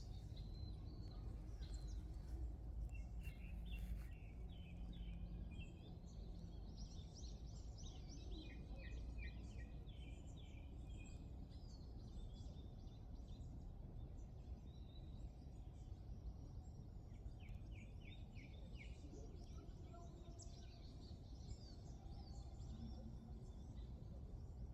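Several birds chirping and singing, with a few quick trills of evenly repeated notes, over a steady low background rumble.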